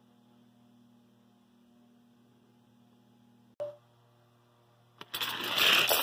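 Faint steady hum, a single click about three and a half seconds in, then near the end another click as the Hot Wheels 3-lane raceway start gate is released and the die-cast cars rattle loudly down the plastic track.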